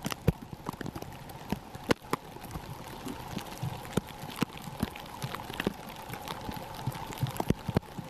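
Heavy wet snow pattering close to the microphone in many sharp, irregular ticks, over a faint steady hum.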